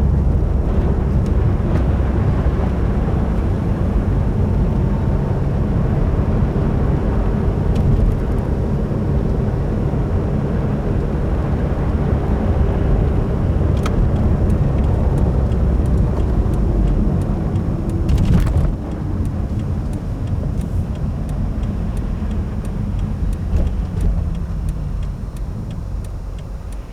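Cabin noise of a 2015 Subaru WRX driving on a snowy road: steady engine and tyre rumble, with a brief swish about eighteen seconds in. The rumble eases off in the last few seconds as the car slows.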